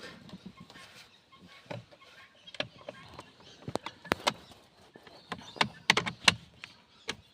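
Irregular light clicks and taps of screws and hard plastic steering column covers being handled and fitted back together, with a cluster of sharper clicks in the second half.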